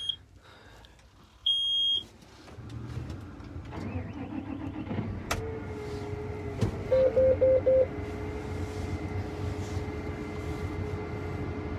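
John Deere 8RX 410 tractor heard from inside its cab: a high electronic beep sounds twice, then the engine starts up and runs steadily with a constant whine over it. About seven seconds in, four quick beeps sound from the cab's alert buzzer.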